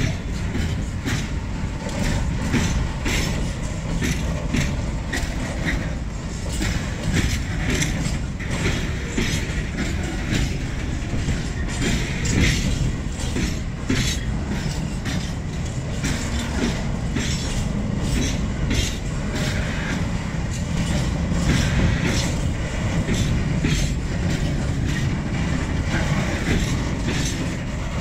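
Freight train wagons rolling past, their wheels clacking over rail joints in a steady stream of clicks over a low rumble.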